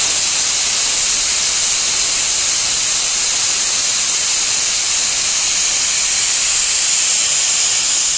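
Bajaj pressure cooker's weight valve letting off steam: a loud, steady hiss that starts suddenly and stops after about eight seconds. This is the cooker's 'whistle', the sign that it has come up to full pressure and this stage of cooking is done.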